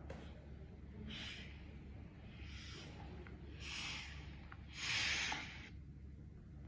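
Bursts of hissing noise from a smartphone speaker playing back a voice recording from an audio-jammer test, with no speech coming through. Four short bursts, about a second apart, the loudest about five seconds in.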